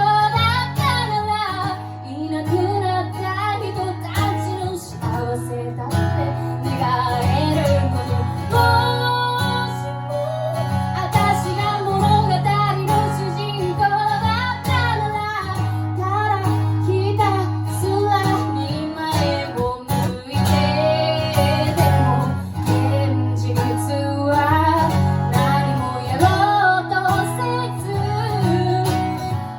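A woman singing with acoustic guitar accompaniment, her melody line moving over steady strummed chords.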